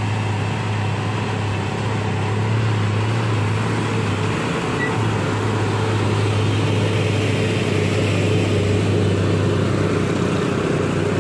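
Concrete mixer truck's diesel engine running steadily as the heavily loaded truck climbs very slowly uphill, a low even drone that gets a little louder as it draws close and passes.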